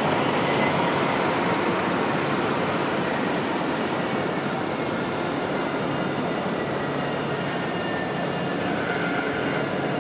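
Tram running along street track: a steady rolling rumble, with thin high wheel-squeal tones coming in during the second half.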